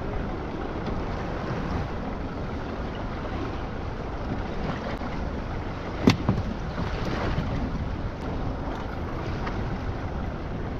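Steady wind and sea noise on a small fishing boat at sea, with wind buffeting the microphone. A single sharp knock sounds about six seconds in.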